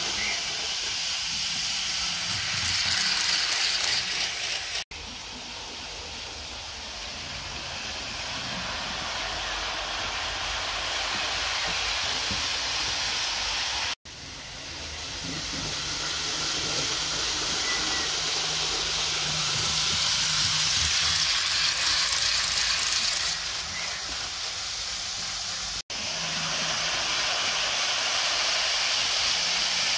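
Rivarossi ETR 480 Pendolino model train running on the track: a steady hissing whir of its motor and wheels on the rails, getting louder as it comes closer. The sound is broken by three abrupt cuts.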